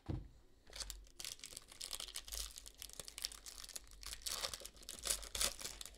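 A foil trading-card pack crinkling and tearing as it is handled and ripped open, a dense run of crackles and rustles starting about a second in.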